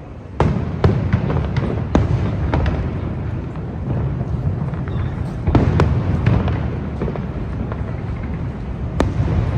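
Aerial fireworks going off: about half a second in, a rapid series of bangs and crackles begins over a continuous low rumble, ending with a single sharp crack near the end.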